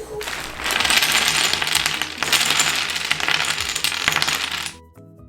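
Tangram pieces clattering together: a dense rattle of many small hard pieces that runs for about four and a half seconds and stops near the end.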